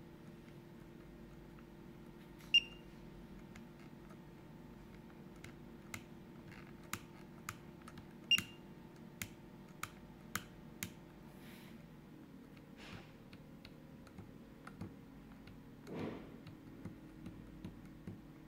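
Plastic button clicks from a Fimi X8 SE drone remote controller pressed by hand: a dozen or so sharp, separate clicks at uneven intervals, two of them much louder with a brief high ring, then fainter ticks and a duller knock, over a steady low hum.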